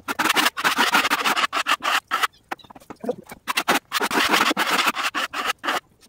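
Rough-sawn hard maple slabs scraping and sliding against one another and the sawmill bed as they are shoved along, in several rough bursts with short pauses between.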